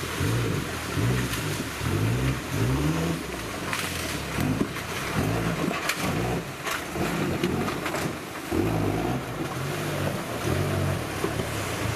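Off-road 4x4 competition vehicle's engine revving up and down over and over as it crawls through a rocky creek, with water splashing around the tyres and a few short sharp cracks near the middle.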